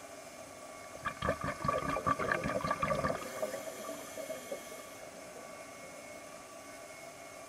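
A diver's exhaled air bubbles gurgling underwater: a crackling burst that starts about a second in, lasts about two seconds and then fades, over a steady faint hiss.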